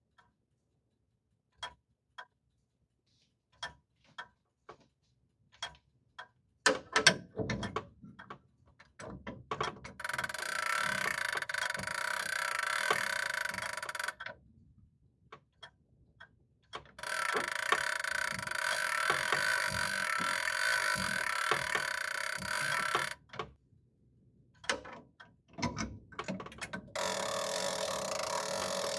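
Grandfather clock ticking, spaced about a second apart. About seven seconds in come several loud knocks and clunks, followed by three long stretches of a steady sound holding several tones, broken by more knocks.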